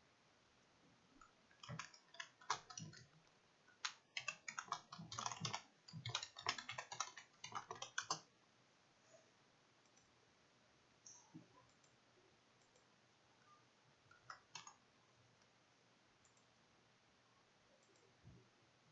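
Computer keyboard typing: a quick run of keystrokes over several seconds, as a file name is typed in. A few single clicks follow later.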